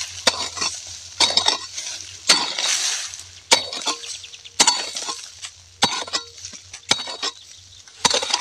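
A metal pick mattock striking and scraping dry, hard soil, with loose clods crumbling. There are about eight sharp blows, roughly one a second.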